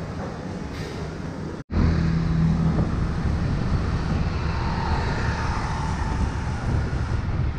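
Steady background rumble with wind buffeting the microphone. It breaks off in a sharp cut about a second and a half in and comes back louder.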